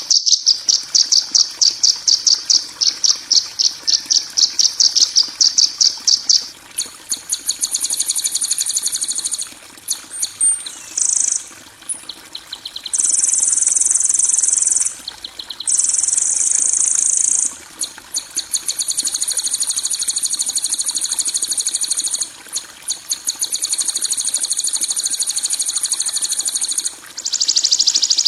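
Harsh, rasping bird and insect-like calls of the kind used as songbird training audio: a fast rattling trill of about four pulses a second for the first six seconds, then a series of high buzzy trills and drawn-out buzzes broken by brief pauses.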